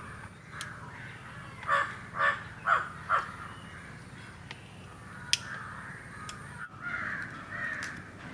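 A crow cawing: four harsh caws in quick succession about two seconds in, then fainter calling near the end.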